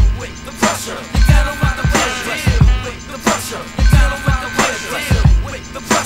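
Hip hop beat with a heavy kick drum and snare hits under a short sampled loop that repeats about every two and a half seconds.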